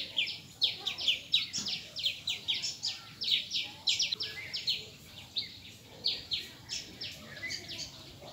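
Birds chirping: a dense, unbroken run of short, high chirps, several a second.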